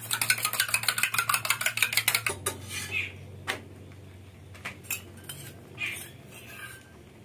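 Egg being beaten with a metal utensil in a steel bowl: fast, even clinking at about nine strokes a second that stops after about two seconds, followed by a few scattered taps and clinks.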